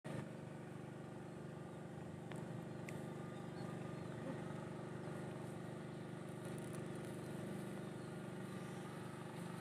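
Faint, steady low hum of a distant engine running, with quiet open-air background.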